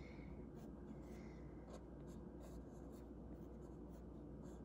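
Pigma Micron fineliner pen scratching faintly on watercolor paper in short, separate strokes as lines are inked over paint.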